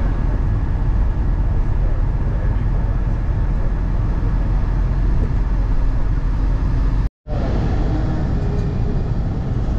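Bus driving at speed on a highway, heard from inside the cabin: a steady low rumble of engine and road noise. About seven seconds in it cuts out for a moment, then resumes.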